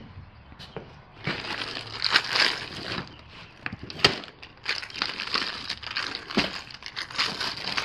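Plastic packaging crinkling and rustling as it is handled, starting about a second in, with scattered knocks and a sharp click about four seconds in.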